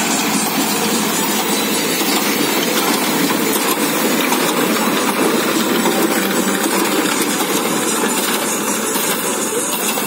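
A Mahindra tractor's diesel engine running under load as it drives a Mahindra Bale Master SQ 180 square baler picking up and baling straw, a steady mechanical noise without pauses.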